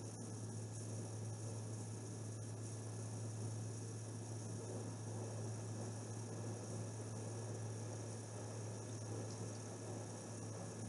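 Steady low electrical hum, like mains hum, with faint background hiss.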